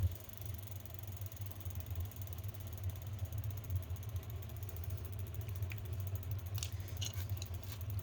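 Drill running steadily to spin a motorized bicycle's rear wheel and sprocket, a low hum with fast light mechanical ticking and a few clicks near the end; the wheel is spun to check the sprocket for wobble.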